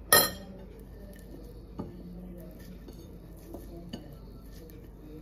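A sharp, ringing clink of china just after the start, as of a ceramic plate being knocked, then a few much lighter taps against the plate.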